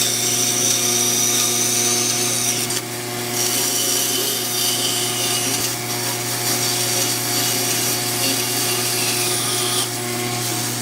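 An electric woodworking power tool running steadily: a motor hum with a higher hiss over it, the hiss dropping briefly about three seconds in and changing again near the end.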